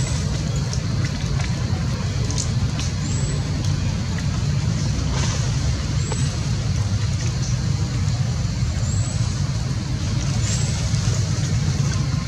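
Steady low rumble, like a running engine or traffic, with a short high rising chirp that recurs every two or three seconds.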